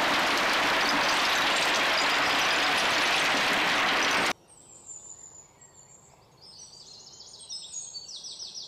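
A load of stones sliding and clattering off a tractor's tipping trailer, a loud steady rush that cuts off abruptly about four seconds in. After it, a quiet rural background with birds chirping repeatedly.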